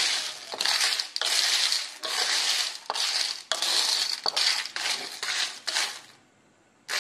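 A spatula stirring shell-on guteng in a metal wok: the shells scrape and rattle against the pan in strokes about twice a second. The stirring stops about six seconds in, and one short sharp knock follows near the end.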